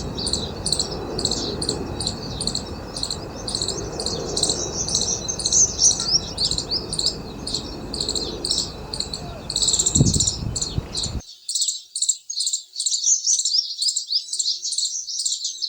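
A flock of small birds chirping densely and continuously, many high calls overlapping several times a second. A low background rumble underneath cuts off suddenly about eleven seconds in, just after a dull thump.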